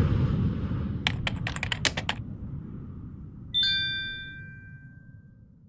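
Subscribe-button animation sound effects: a quick run of about eight clicks, then a single notification-bell ding about three and a half seconds in that rings out for a couple of seconds. A faint low rumble fades out underneath.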